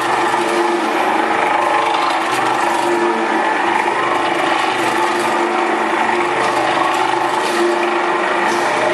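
Jacketed cooking pot's mixer running steadily: the geared agitator motor hums while the stirring paddles churn and scrape sliced food around the stainless steel pot, a constant hum under a dense rustling noise.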